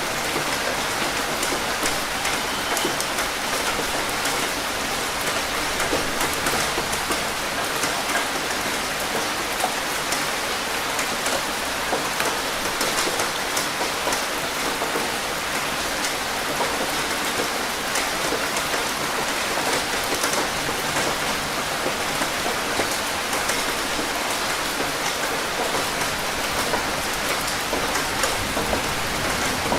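Steady rain falling on a surface, a continuous hiss with many individual drops ticking through it.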